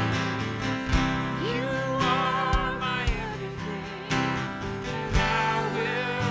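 A live worship band playing a song: a wavering sung melody over guitar and sustained bass notes, with a drum hit about once a second.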